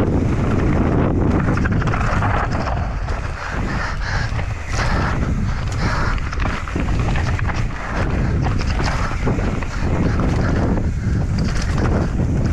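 Wind buffeting a helmet camera's microphone over the rumble and rattle of a mountain bike descending a rocky dirt trail, with many small knocks from tyres and frame hitting stones and roots.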